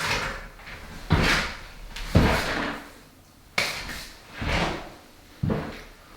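A series of about six irregular knocks and clunks over several seconds, each sudden with a short fading tail, like hard objects being handled or set down.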